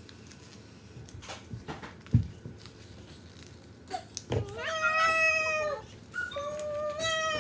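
Two long, high-pitched, meow-like calls, each held for over a second, the second falling in pitch at its end. Before them, a few faint ticks and one sharp tap while paper is folded.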